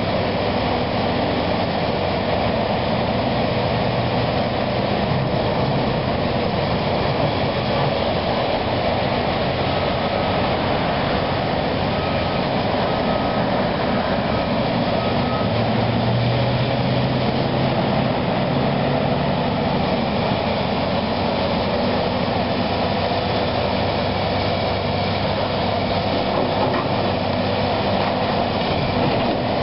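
Hydraulic excavator's diesel engine running steadily under load while it works the arm and bucket against a brick wall, with its low engine hum growing a little stronger around the middle.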